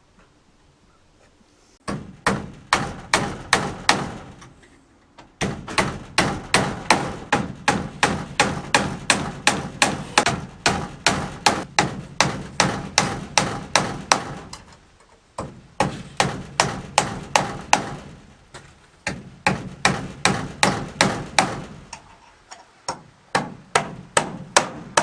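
Hammer driving nails with quick, even strikes, about four a second, in several runs broken by short pauses.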